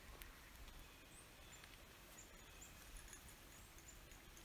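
Near silence: faint outdoor background with a few short, high bird chirps scattered through.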